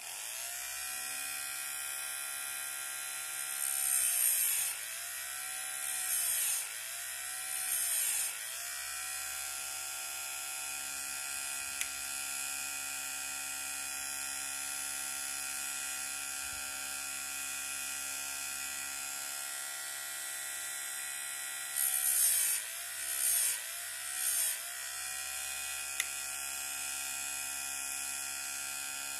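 Electric chainsaw-chain grinder switched on, its motor running with a steady hum and whine. Three short grinding passes come a few seconds in, and three more about three-quarters of the way through, as the wheel is pulled down onto the chain teeth. The motor's pitch sags each time the wheel bites.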